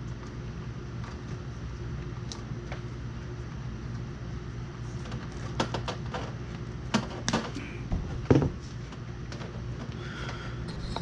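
RV air conditioner running with a steady hum, with a few scattered clicks and knocks in the middle, the loudest about eight seconds in, as wires are handled at the wall.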